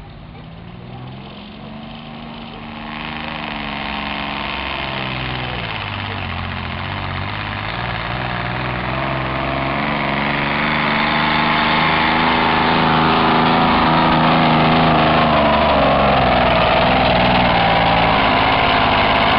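Pulling tractor's engine running hard during a pull, its pitch falling and rising again several times and growing steadily louder as it comes down the track.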